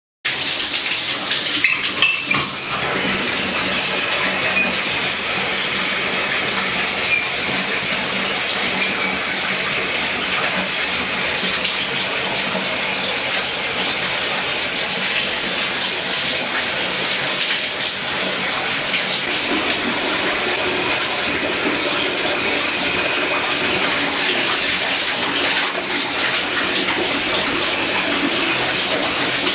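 Shower running: a steady, even hiss of water spraying and splashing in a bathtub. It starts suddenly just after the beginning, with a few louder knocks about two seconds in.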